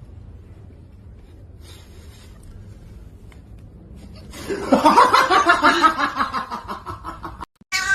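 A person laughing hard, starting about halfway through after a few seconds of faint background hiss, and cutting off suddenly near the end.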